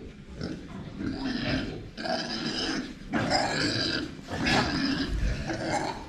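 Young show pigs calling in their pens: about five short, rough calls a second or so apart. The pigs are hungry and waiting to be fed.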